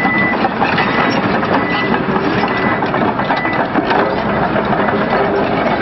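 Komatsu D155AX crawler bulldozer running and travelling, its steel tracks clattering over the diesel engine noise. A short high beep, like a backup alarm, repeats about once a second.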